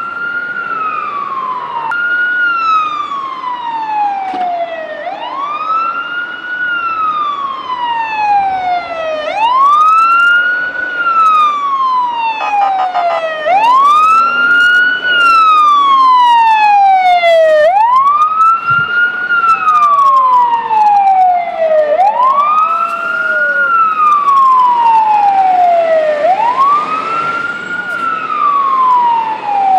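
Fire engine siren wailing: each cycle rises quickly to a high pitch and slides slowly back down, repeating about every four seconds, about seven times.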